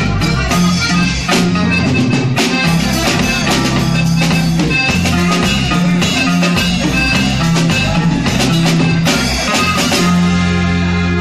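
Band music playing a steady beat, with drums striking regularly over a sustained bass line.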